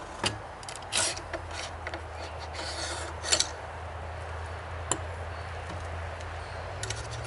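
Knight's Armament SR-25 rifle being field-stripped by hand: the upper receiver is hinged open and the chrome bolt carrier is drawn out of it and laid on a wooden table. It comes as a series of metallic clicks and scrapes, the loudest about three and a half seconds in.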